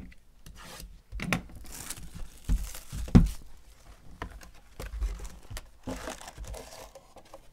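A cardboard box of trading cards being opened and its wrapped card packs pulled out and handled: crinkling and rustling of the wrappers and cardboard, with several irregular knocks and thumps, the loudest about three seconds in.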